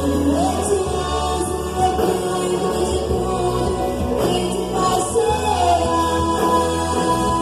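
A band playing gospel music with several voices singing together over a steady bass line.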